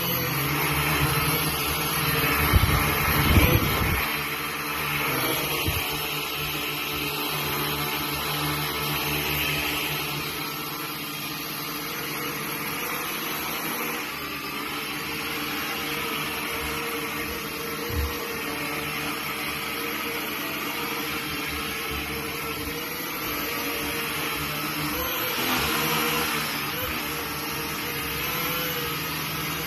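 Small quadcopter drone hovering, its propellers and motors making a steady whirring buzz. A few loud low thumps come about three seconds in, and one short knock later on.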